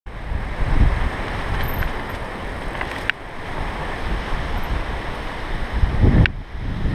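Wind buffeting the microphone of a bike-mounted action camera, with the rumble of mountain-bike tyres rolling over a dirt trail. Two sharp rattling knocks, about three seconds in and again near the end, as the bike jolts over bumps.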